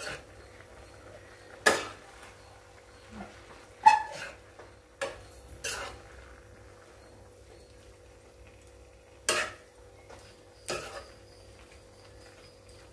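Steel spoon scraping and clinking against a kadai while stirring a thick mix of cooked vegetables and ground coconut. About half a dozen sharp clinks come at irregular intervals.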